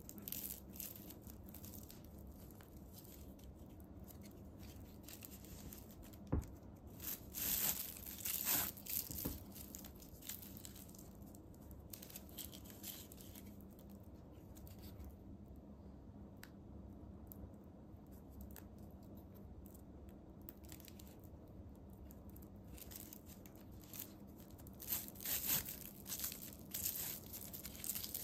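Polyethylene Suzuran tape (plastic raffia) crinkling and rustling in scattered bursts as it is pulled through crocheted stitches with a tapestry needle. The bursts are loudest about a quarter of the way in and again near the end, over a faint steady hum.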